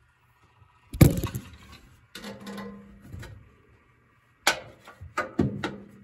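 Knocks and clicks from handling a Hotpoint top-loading washing machine as it is switched off: a loud thump about a second in, a short rattling stretch with a faint hum, then several sharp clicks near the end.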